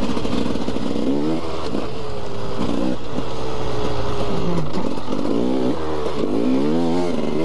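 KTM 300 EXC's single-cylinder two-stroke engine under way on dirt, revving up and dropping back several times as the throttle is opened and closed.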